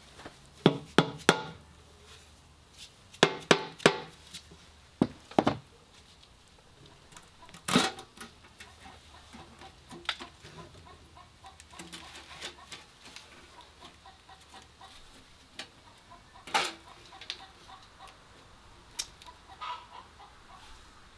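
Sharp metal knocks and clanks, a quick cluster near the start and a few more spread through, as the oil pan is worked loose and lifted off a Ford 351M V8 hung upside down.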